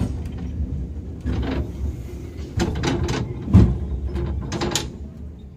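A vintage tram running: a steady low rumble with irregular metallic clanks and knocks, the loudest about three and a half seconds in, easing off near the end.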